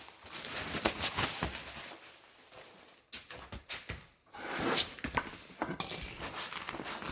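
Packets of plastic garage-door insulation retainer clips being opened and handled: irregular crinkling of packaging and the light clicking and clattering of small plastic clips against each other.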